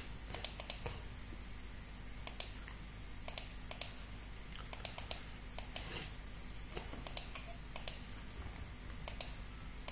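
Sharp, irregular clicks from operating a computer's mouse and keys, often two or three in quick succession, over a faint steady room hum.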